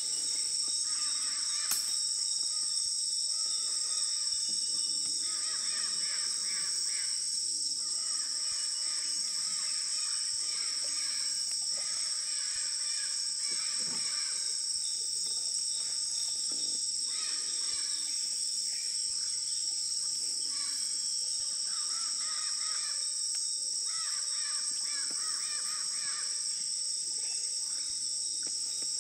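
Rainforest ambience in flooded Amazon jungle: a steady, shrill insect chorus, with bouts of bird calls a couple of seconds long coming again and again.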